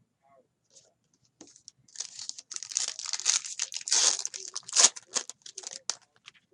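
Plastic wrapper of a trading-card pack being torn open and crinkled, a run of ripping and rustling lasting about four seconds, loudest near the end.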